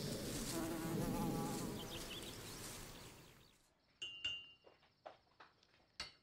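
A fly buzzing over a steady hiss of ambience, fading out after about three and a half seconds. Then a few light clinks and taps of crockery, one with a brief ring.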